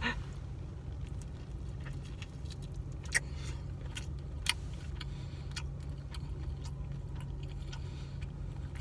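A man chewing a first bite of camel meat, with faint scattered clicks and smacks of the mouth over a steady low hum.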